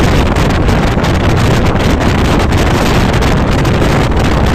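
Loud wind buffeting the microphone as it is held out of a moving train, with the train's low running rumble underneath.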